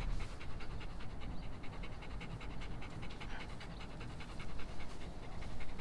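Golden retriever panting in a fast, even rhythm.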